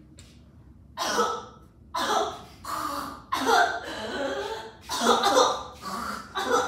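A person coughing in about five harsh, repeated fits, each starting abruptly, about a second apart: a consumptive (tuberculosis) cough acted out on stage.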